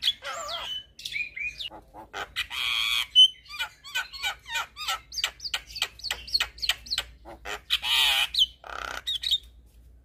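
Javan myna singing a fast, varied string of short chirps and whistled notes, twice broken by a longer harsh rasp.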